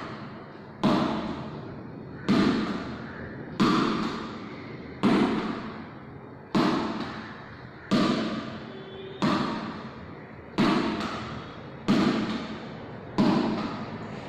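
A yellow rubber ball repeatedly thrown against a wall and caught one-handed: about ten sharp thuds, one every second and a half or so, each with a long fading echo in a bare hall.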